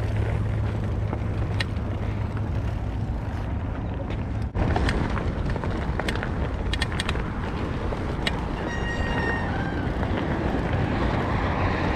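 Steady wind and tyre noise from riding a mountain bike, with scattered clicks and a short high squeal about nine seconds in.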